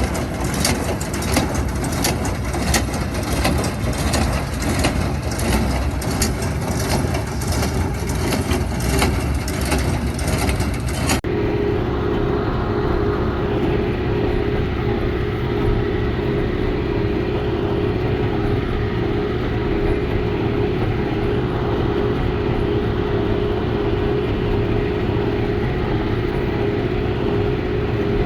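John Deere 6120E tractor and Ford 532 square baler running steadily while baling hay, with repeated sharp knocks over the first part. About eleven seconds in, the sound changes suddenly to a steadier machine hum with a clear low tone.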